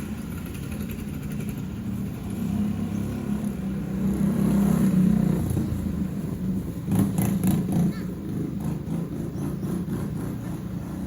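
A motor vehicle engine running, its rumble growing louder toward the middle and then easing, with a few sharp clicks partway through.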